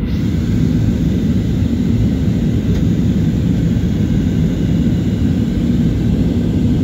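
Jet airliner cabin noise on descent: a steady low drone of the engines and rushing air.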